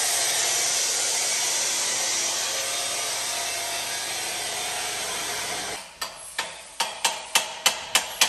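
Power tool cutting an exhaust pipe, running steadily and then stopping about six seconds in. A quick series of sharp knocks, about three a second, follows near the end.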